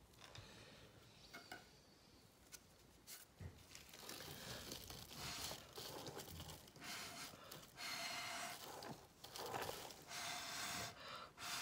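Repeated puffs of breath blown through a straw onto wet acrylic pour paint to blow it out, each puff half a second to a second long with a faint steady tone. The puffs start about four seconds in, after a few soft ticks.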